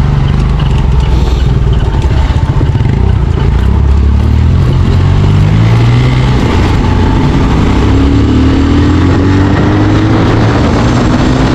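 Motorcycle engine running while riding, its pitch climbing steadily as it accelerates twice, about four seconds in and again near the end.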